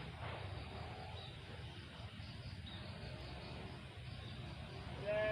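Faint rural ambience with insects chirping in an even, repeating pattern over a low rumble. About five seconds in, a short animal bleat cuts in and is the loudest sound.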